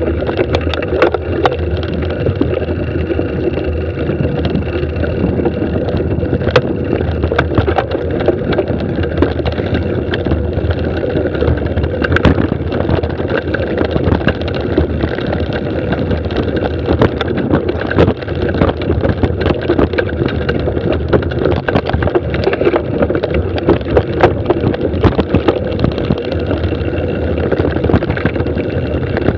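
Mountain bike descending fast on a dirt singletrack: a steady rush of tyre and trail noise with constant rattling and sharp knocks as the bike hits bumps and roots.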